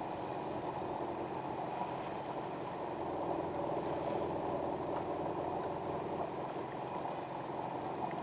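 Boat motor running steadily as the boat moves over the water, with water washing along the hull.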